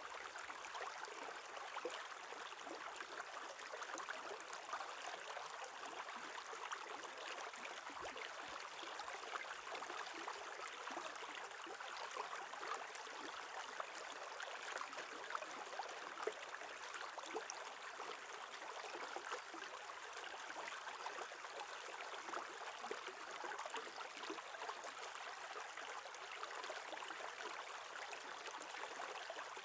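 Shallow stream water running over stones along an ice edge: a steady close-up rush with many small ticks and pops from the bubbling surface.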